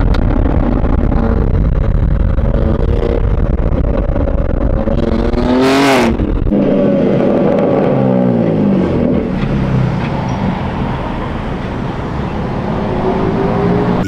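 BMW F30 straight-six engine and exhaust accelerating hard, the pitch climbing through the revs. About six seconds in there is a brief burst of noise and the pitch drops, then climbs again.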